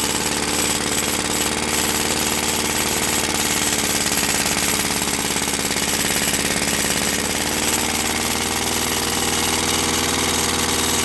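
Lawn mower engine running steadily on fuel vapor fed through a homemade vapor intake, its note shifting slightly about seven seconds in. An air leak at the intake gasket leaves the mixture not quite right.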